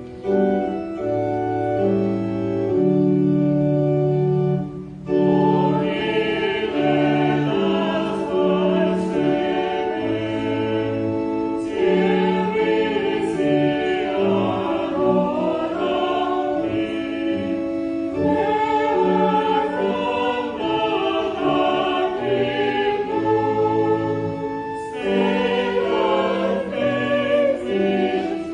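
Church choir singing a hymn with organ accompaniment. The organ plays alone for about the first five seconds, then the voices come in.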